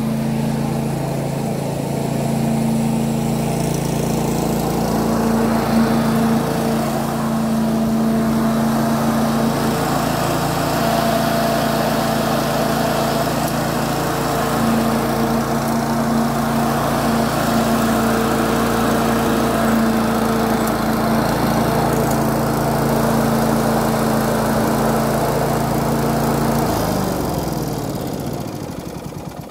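Petrol walk-behind rotary lawn mower's small single-cylinder engine running steadily on a test run of the self-propelled drive, just repaired. Near the end the engine is switched off and spins down to a stop.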